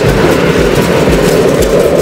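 Hot-air balloon's propane burner firing, a loud steady rushing noise with irregular low buffeting underneath.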